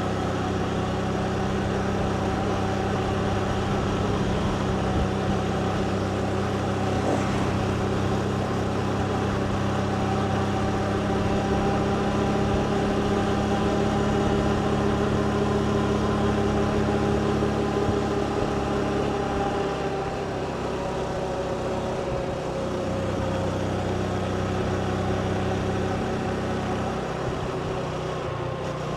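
Motorbike engine running steadily under way, over road and wind noise. Its note eases down slightly about two-thirds of the way through.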